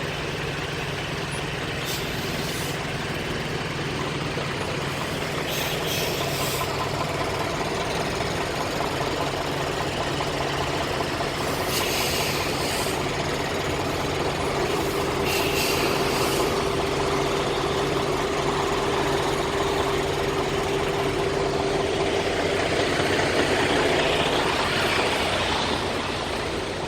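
Semi-truck's diesel engine running at low speed while the rig is backed, with several short hisses of air.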